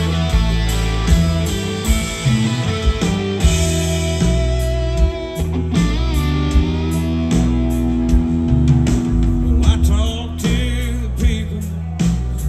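Live southern rock band playing: electric guitar over bass and drums, with a steady beat.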